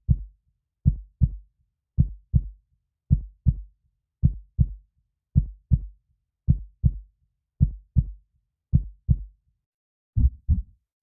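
Heartbeat sound effect: slow, even lub-dub double thumps, a little under one beat a second, with silence between beats.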